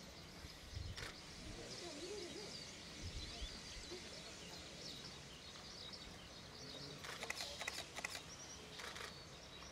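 C12 steam tank locomotive getting under way, faint and distant: a steady hiss with a soft low chuff now and then, and birds chirping above it. A quick run of sharp clicks comes about seven seconds in, and a shorter one near the end.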